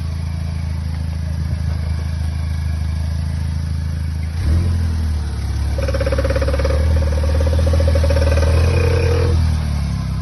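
Vauxhall Astra J VXR's 2.0 turbo four-cylinder idling, then, about four seconds in, the car pulls away and a loud whirring, creaking-knocking noise from the front end runs for about five seconds before the sound settles back to the engine hum. The owner traced this front-wheel creak, which appeared when pulling off with the wheel turned, to the gearbox oil: changing it cured the noise.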